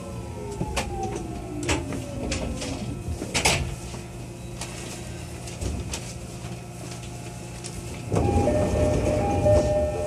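209 series 1000 subseries electric train's traction motors whining downward in pitch as it brakes to a stop, with a few sharp clicks. About eight seconds in, a louder rush of noise and a repeating two-note chime as the sliding doors open.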